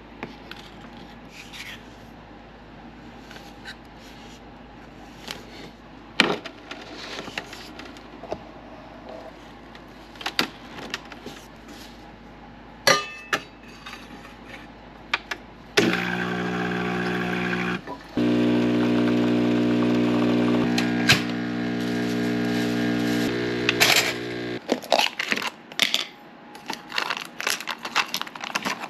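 Clicks and knocks of a metal portafilter being filled, tamped and handled, then a Mr. Coffee espresso machine's pump running with a loud steady buzz for about nine seconds, with one short break a couple of seconds after it starts. A few light clicks follow.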